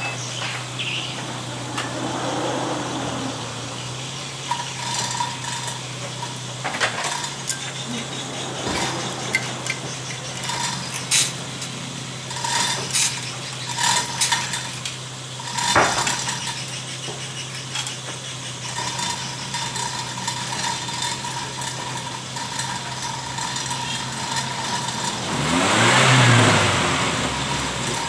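Steady low engine hum with scattered metallic tool clinks and knocks in a car workshop; near the end an engine revs up, its pitch rising and falling.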